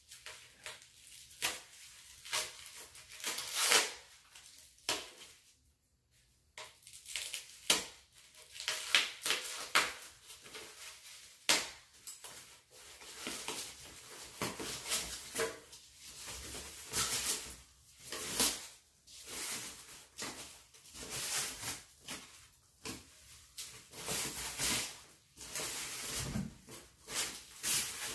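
Rustling and crinkling of protective foam and paper wrap being pulled off a carbon-fibre bike frame: irregular handling noises, swishes and crackles.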